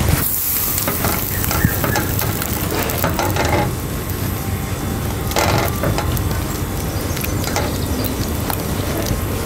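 Risotto being stirred in a stainless steel saucepan with a slotted spatula, the rice scraping and sizzling against the hot pan as butter is worked in to finish it.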